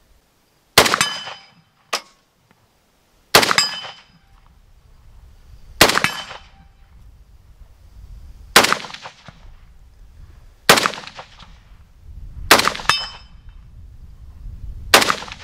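Romanian PM md. 64 RPK-pattern 7.62×39 rifle fired in seven single aimed shots, about two to two and a half seconds apart, each with a short echoing tail. A short sharp tick follows about a second after the first shot.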